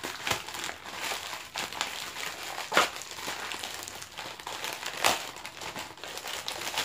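Plastic courier pouch crinkling as it is pulled and torn open by hand, with two louder crackles about three and five seconds in.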